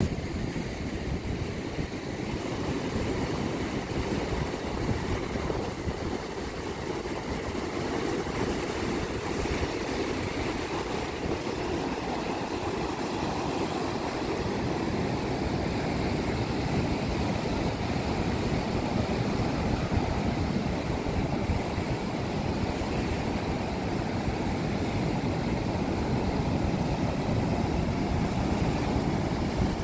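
Ocean surf breaking and washing over rocks at the shoreline: a steady rushing noise that grows slightly louder over time.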